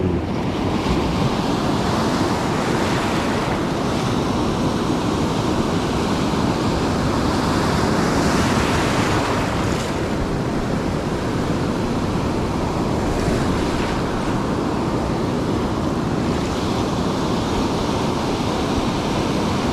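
Pacific surf breaking close by and washing up the beach, the rush swelling every few seconds as each wave comes in, with wind buffeting the microphone.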